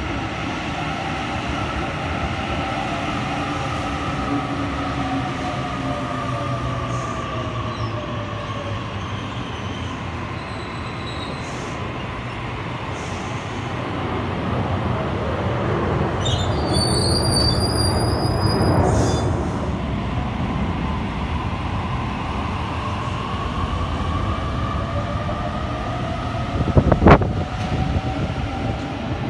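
Sydney Trains double-deck electric train at a platform. The whine of its electric traction motors falls in pitch as it slows, and a high-pitched squeal comes from the train about midway. Near the end the whine rises again as it pulls away, with a sharp knock a couple of seconds before the end.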